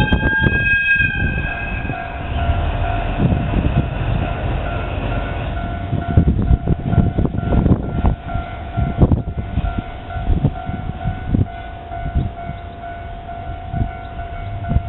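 Diesel freight locomotive passing over a level crossing: a short horn blast of about a second and a half at the start, then the train running by with a steady high-pitched ring and irregular low clunks of the wheels.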